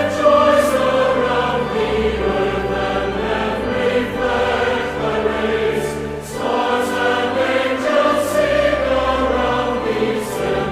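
Lo-fi hip-hop beat playing without rapped vocals: held chords over a low bass line, with a few soft cymbal hits.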